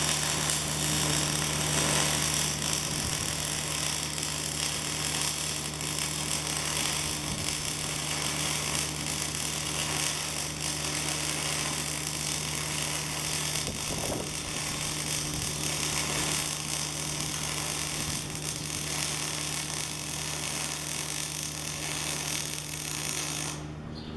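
Electric welding arc crackling steadily for over twenty seconds, cutting off abruptly near the end.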